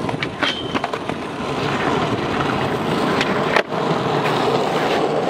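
Skateboard wheels rolling steadily over smooth concrete, with a few sharp clicks and knocks from the board in the first second.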